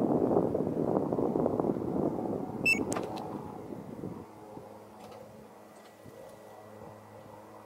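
1992 Toyota Land Cruiser HDJ81's 4.2-litre 1HD-T turbo-diesel engine, remote started and running. It is loud for about four seconds, with a sharp click and a short high beep about three seconds in, then it drops suddenly to a quieter steady hum.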